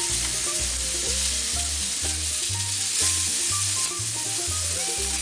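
Pork loins searing in olive oil on a hot Blackstone flat-top gas griddle: a steady sizzle.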